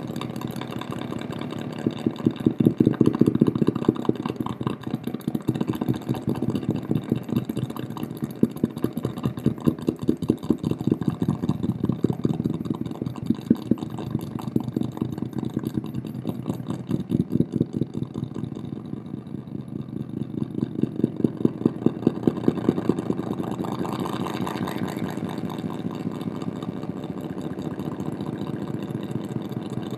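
Rapid, buzzy electronic pulsing from strobe-light flicker picked up by a solar cell and fed through a Boss DD-7 delay pedal and a distortion pedal into a speaker. It swells louder and eases back several times as the devices are adjusted.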